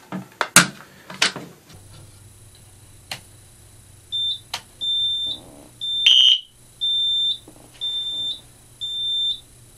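Fire alarm control panel's built-in sounder beeping: a single high-pitched tone pulsing on and off a little more than once a second, starting about four seconds in, as the system is put into walk test. A few sharp switch clicks come before and among the beeps, the loudest about six seconds in.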